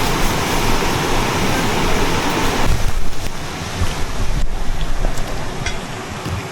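Valley stream water rushing over rocks, a loud steady rush that turns quieter and lower about two and a half seconds in.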